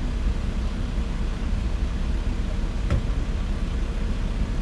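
Car driving along, a steady low rumble of road and engine noise, with a single click about three seconds in.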